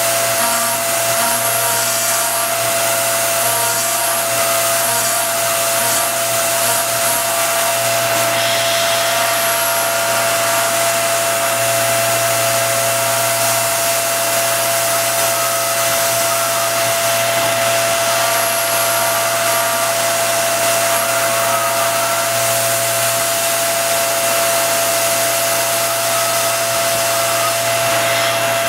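Self-converted RF45 CNC mill spindle turning a 1/8-inch cutter at about 6800 RPM, milling 3D lightening panels into a 1911 pistol slide. A steady machine hum and whine under a continuous hiss of air, with no breaks.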